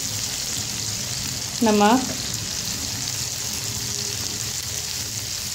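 Onions, tomatoes and green chillies sizzling steadily in hot oil in a nonstick kadai as the masala fries.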